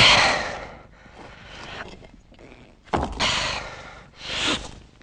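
A man's heavy, effortful breathing, as from exhausting strain: loud gasping breaths and exhalations, about four in five seconds, the first the loudest, with a little voice in the last one.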